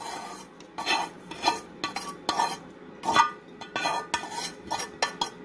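Spoon scraping and knocking against a metal frying pan, pushing toasted manioc flour into a pot of beans. About a dozen quick, irregular scrapes.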